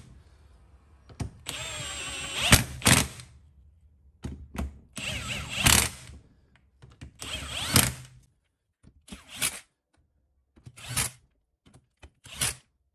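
Cordless impact wrench snugging down the ring gear bolts on a differential carrier in a crisscross pattern. It runs in three bursts of a second or more, then gives several short blips.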